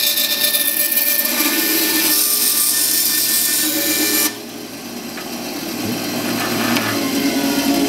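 Vevor 10-inch bandsaw cutting through a strip of 3D-printed PLA plastic: a loud, high hiss that stops suddenly about four seconds in as the cut goes through. A quieter sound follows and slowly grows louder.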